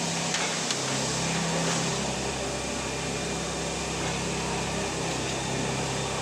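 Steady electric machinery hum, with a deeper layer of hum filling in about a second in and a few light clicks near the start.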